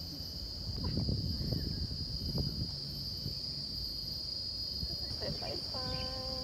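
Insects droning steadily at one high pitch, over a low rumble of wind on the microphone.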